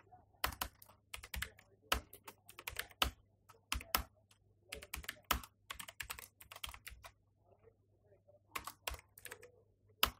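Typing on a computer keyboard: uneven runs of key clicks, with a pause of about a second about two-thirds of the way in.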